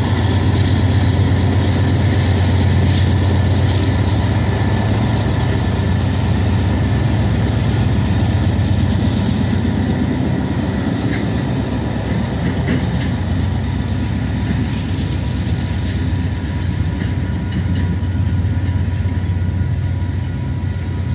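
Diesel-electric freight locomotive at the tail end of a coal train running with a steady low engine rumble as it rolls past and away, growing slightly quieter.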